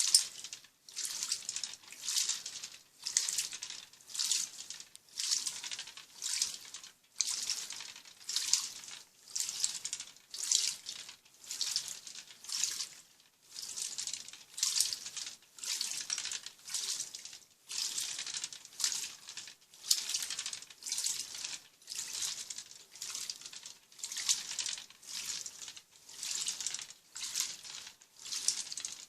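Top-loading washing machine (Turbo Economia 15 kg) agitating a load of jeans in water, with the turbo function off: a steady rhythm of swishes, about one and a half a second, as the agitator turns back and forth.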